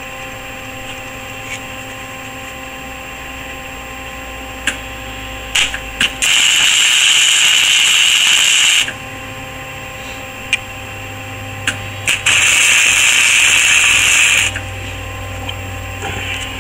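Electric arc welder tacking a steel bearing plate onto a go-kart frame: a few short crackling arc strikes, then two steady crackling, hissing welds of about two and a half seconds each, the second a few seconds after the first.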